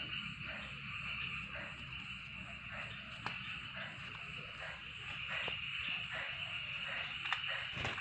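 Night chorus of frogs croaking in a steady repeating rhythm over a constant high-pitched insect drone, with a few faint clicks.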